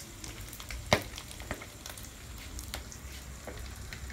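Chicharon bulaklak (pork mesentery) frying in hot oil in a wok: a steady sizzle broken by sharp pops, the loudest about a second in. The popping is the sign it is nearly crisp and done.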